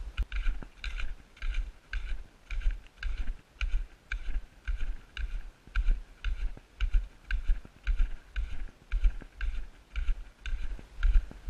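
Hiking boots crunching on packed snow in a steady walking rhythm of about two steps a second, each step a low thud with a crisp crunch.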